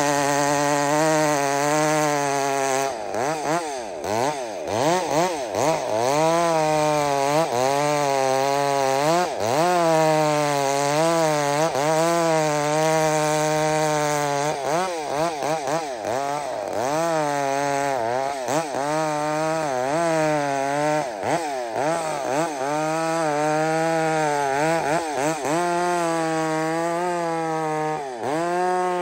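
Modified two-stroke Husqvarna chainsaw ('Hybrid Husky') running at full throttle while cutting through a large log, its pitch repeatedly dipping and recovering as the chain loads up in the wood. The chain is hand-filed.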